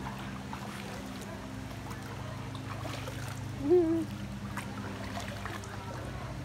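Steady low mechanical hum with faint trickling water at a mud-spa pool. A short hummed voice sound, rising then held briefly, comes about three and a half seconds in and is the loudest thing heard.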